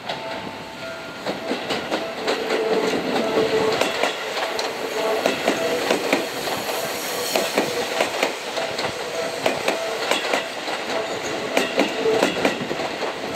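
Seibu 30000 series electric train coming slowly in, its wheels clattering over the points and rail joints in rapid, irregular clicks, with a faint steady whine beneath. It grows louder about two seconds in as the cars draw alongside.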